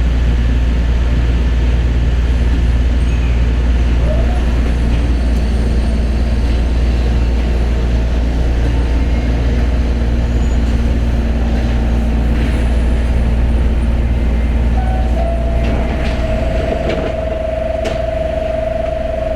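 Osaka Monorail train running, heard from inside the car: a steady low rumble of the rubber-tyred running gear with a motor whine. About fifteen seconds in, a higher steady whine takes over and the rumble eases a little as the train slows for the next station.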